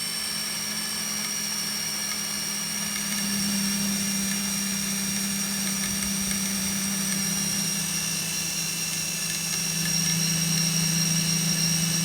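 Cinewhoop FPV drone's brushless motors and propellers spinning steadily: a steady hum with a high whine over it. It carries a resonance-like abnormal noise that the owner suspects comes from the propeller blades.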